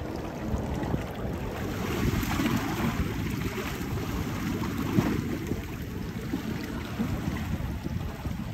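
Wind buffeting the microphone over choppy sea water, with a steady wash of small waves.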